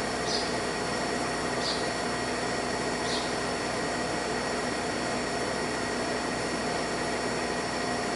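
Three short, high chirps from Eurasian tree sparrows, about a second and a half apart, over a steady hiss with a faint hum.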